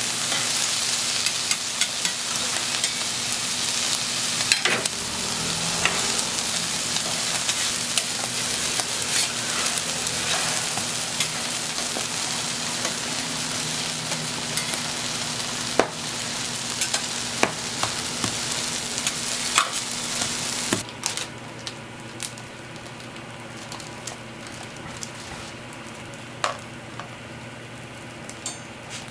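Egg mixture and onions sizzling on a flat steel griddle, with metal tongs and a spatula clicking and scraping against the steel. The sizzle falls away abruptly after about twenty seconds, leaving quieter taps of the utensils.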